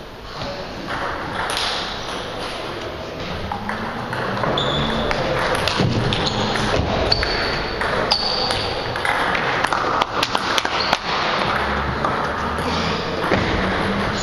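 Table tennis ball clicking back and forth off the bats and the table during a rally, with a quick run of clicks about ten seconds in.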